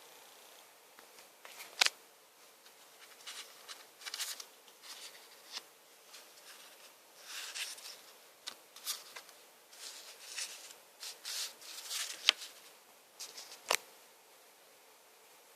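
Hands handling unboxing packaging and contents: intermittent rubbing and rustling with scattered sharp clicks, the loudest about two seconds in and twice near the end.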